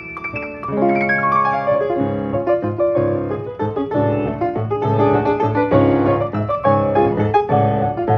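Knabe grand piano with an Ampico B reproducing mechanism playing a piece by itself from a music roll: a brief lull at the start, then fuller chords over strong bass notes from about a second in.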